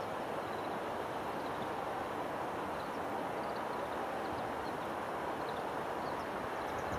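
A flock of Oriental greenfinches giving short, faint high chirps and twitters here and there, over a louder steady rushing background noise.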